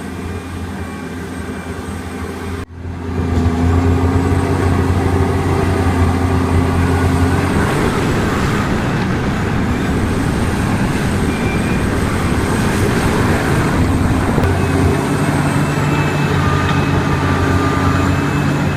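Heavy excavator's engine running steadily. There is a sharp break about two and a half seconds in, after which it is louder.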